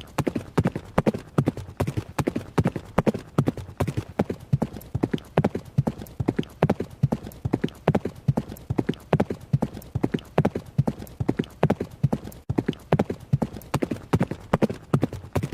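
Horse hooves striking hard ground at a run: a quick, steady, unbroken rhythm of hoofbeats, several a second.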